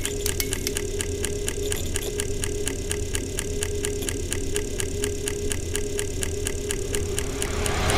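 Film projector sound effect: a steady, rapid mechanical clatter of about six clicks a second over a low hum.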